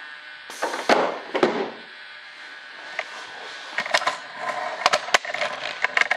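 Hands working on an RC jet model's pneumatic landing gear and doors. A few short rustling, hissing bursts come first, then a run of light, sharp clicks and knocks from about three seconds in.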